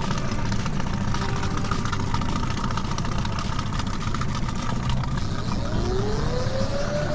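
Small trolling outboard motor running steadily at low trolling speed. About five and a half seconds in, a whine starts and rises in pitch as the electric downrigger's motor spins up.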